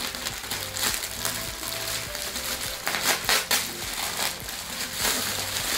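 Clear plastic packaging bag crinkling and rustling as it is pulled open by hand, with many short crackles.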